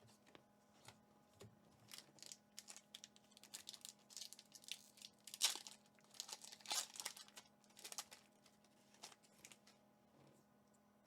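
Foil wrapper of a Pokémon Evolving Skies booster pack being torn open and crinkled, in a run of short crackling rips that is loudest a little past the middle. A faint steady hum lies underneath.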